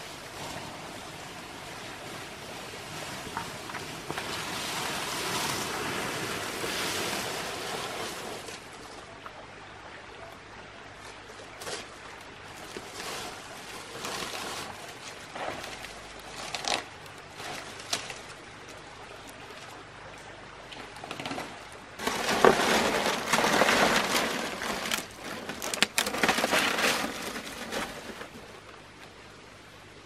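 Large fan-palm fronds rustling and scraping as they are carried and handled. A louder burst of leaf rustling with a few sharp snaps comes about two-thirds of the way through.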